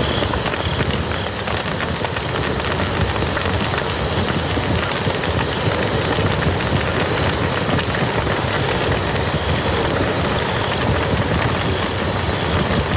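Wood campfire crackling and popping over the steady rush of a flowing river. Faint high chirps repeat a few times near the start and again later.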